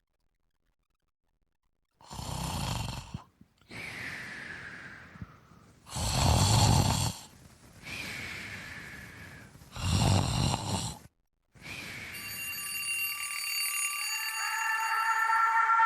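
Snoring, three loud snoring breaths in, each followed by a whistling breath out that falls in pitch. Near the end a steady electronic alarm tone starts and grows louder as music comes in.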